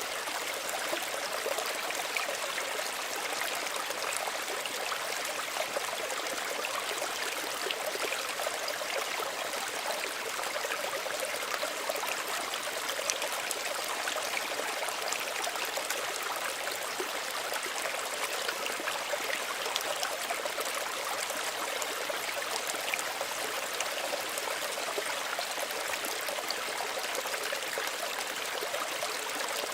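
Small stream of running water, trickling and gurgling steadily over stones.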